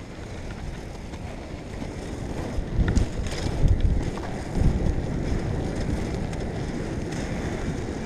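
Wind buffeting a GoPro's microphone, over the low rumble of inline-skate wheels rolling on asphalt; the buffeting swells in gusts about three to five seconds in.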